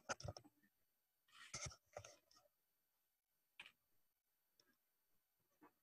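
Near silence, broken by a few faint short clicks and a brief soft rustle about a second and a half in.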